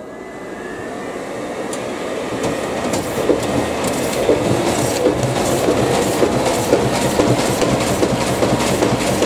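Office printing machine starting a 4,000-copy run at high speed: its running noise builds over the first few seconds into a steady, fast, rhythmic clatter of sheets feeding through.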